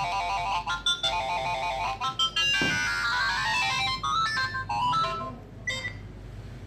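Nokia 3595 ringtone playing through a Nokia 3120 classic's speaker: a synthesized melody of quick, bright notes that changes to a run of gliding notes about two and a half seconds in and stops about five seconds in.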